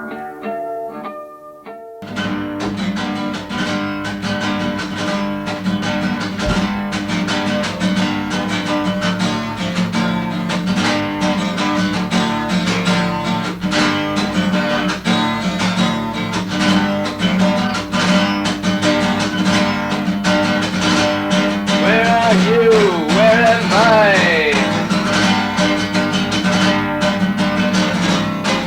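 Acoustic guitar music. A few sparse plucked notes give way about two seconds in to steady strumming, and a wavering, sliding melody line joins near the end.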